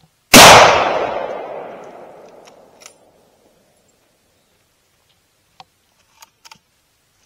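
A single rifle shot about a third of a second in, its report echoing and dying away over about two seconds. A few faint clicks follow near the end.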